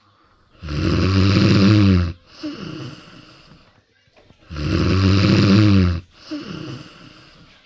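Cat snoring in its sleep: two loud snores about four seconds apart, each followed by a softer breath.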